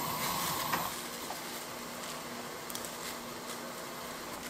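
Broth at a rolling boil in an earthenware ttukbaegi on a gas burner, a steady bubbling hiss, with a few faint clicks of a spoon as fermented soybeans are dropped in.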